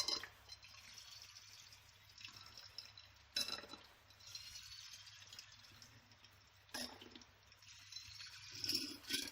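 Coolant being squeezed from a plastic filler bottle into a watercooling reservoir's fill port: faint trickling and dripping, with a few sharp knocks or squirts along the way.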